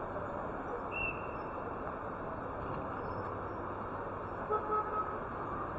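City street traffic noise, with a car horn giving a few short toots about four and a half seconds in.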